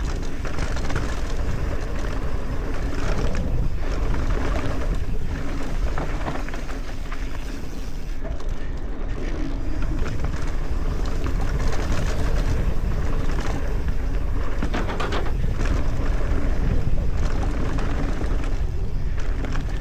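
Mountain bike descending a dirt trail: steady wind rush on the microphone with tyre noise, and scattered knocks and rattles from the bike over bumps.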